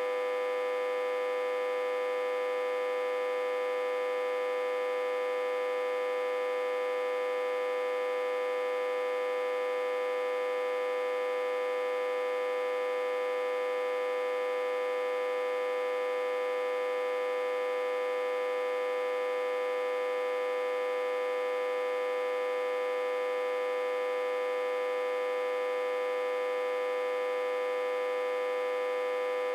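Autotransformer humming steadily, driven backwards through a step-down transformer at about 60 to 80 volts input. The hum is an unchanging, mid-pitched buzzing tone with many fainter overtones above it and no low rumble.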